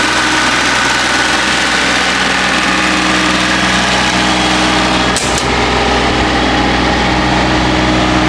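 Hitachi EX22 mini excavator's engine running steadily, with two sharp clicks about five seconds in, after which the high hiss drops.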